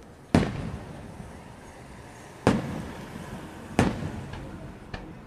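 Aerial firework shells bursting overhead: three loud booms, about a third of a second in, at two and a half seconds and near four seconds, each trailing off in an echo, then two fainter pops near the end.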